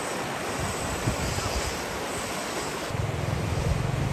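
Fast-flowing floodwater rushing over flooded ground, a steady rush of water. About three seconds in, the low, pulsing hum of an engine joins it.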